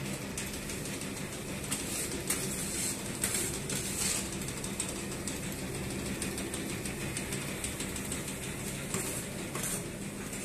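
Motorized sieving machine running steadily while sifting granulated palm sugar: a constant motor hum with brief, irregular bursts of rattling hiss.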